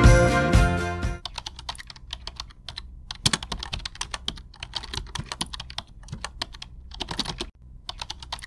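Background music that ends about a second in, followed by typing: rapid, irregular clicks of keys being struck, pausing briefly now and then.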